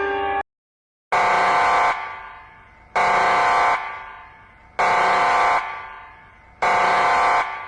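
An emergency alarm sounding four long beeps, each just under a second with an echoing tail, about two seconds apart. It opens with the last half-second of a different steady alarm tone, which cuts off suddenly.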